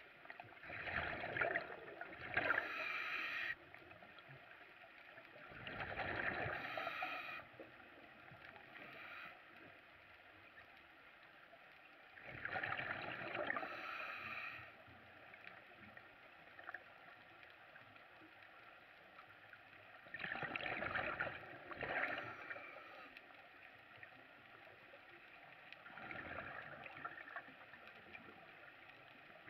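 Scuba diver breathing through a regulator underwater: five bursts of rushing, gurgling exhaust bubbles, each lasting one to two seconds, about six seconds apart.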